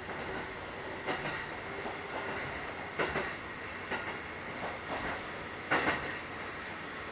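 Cabin running sound of a Kotoden 1080 series electric train, a 1960-built ex-Keikyu 1000 series car, rolling at steady speed with a faint even hum, its wheels clacking over rail joints every second or two. The loudest is a quick double clack about six seconds in.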